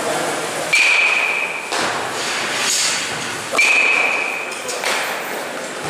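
A metal baseball bat hitting pitched balls twice, about three seconds apart, each crack followed by a ringing ping that lasts about a second. Lighter knocks come between the hits.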